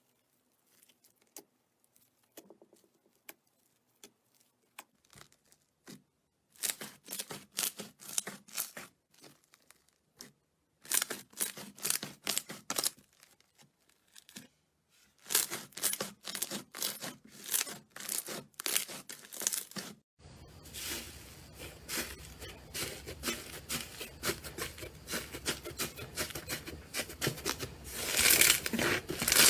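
Slime being squeezed and stretched by hand, giving crackling, popping clicks. A few faint clicks at first, then bursts of crackling every second or two, and from about two-thirds of the way in a denser, continuous crackle.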